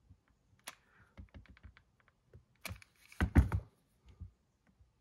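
Small clicks and taps of hands handling the parts of a home-made model-train rolling road, with a short run of heavier knocks about three seconds in.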